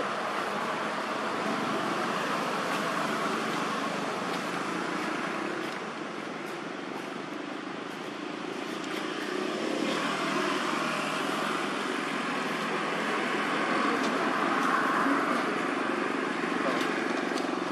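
Steady outdoor background noise of vehicle traffic, with faint voices.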